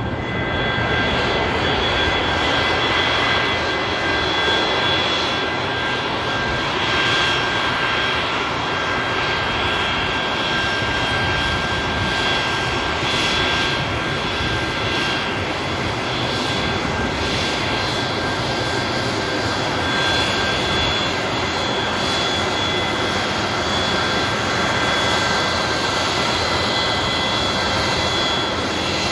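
Boeing 737-200's Pratt & Whitney JT8D turbofans running at idle as the jet taxis in: a steady rush of jet noise with several high-pitched whining tones over it.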